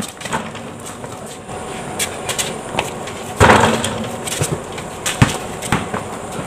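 Basketball play on a concrete court: a scattering of sharp thuds from the ball bouncing and sneakers hitting the concrete, with one louder, longer clatter about three and a half seconds in.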